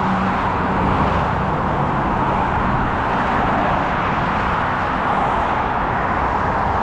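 Steady noise of fast highway traffic going by.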